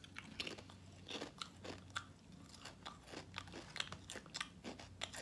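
A potato chip being bitten and chewed: a run of faint, irregular crunches.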